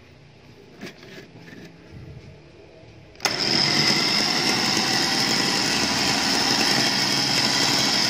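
Hi-Winch 9500 lb electric winch motor switched on about three seconds in and running steadily, a high whine over the gear and cable-drum noise as the steel wire rope spools. A few light handling clicks come before it starts.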